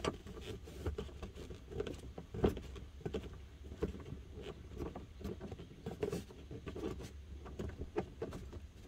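A 7mm socket worked by hand on a tight factory dash-speaker screw: irregular small clicks and scrapes of metal on the screw and the plastic mount, with one louder click about two and a half seconds in.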